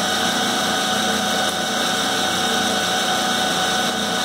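Clausing 5914 lathe running steadily at a raised speed, its motor and Reeves variable-speed belt drive turning with a steady whir of several tones. The hydraulically opened pulley has the belt sitting deep between its plates: the Reeves drive is working.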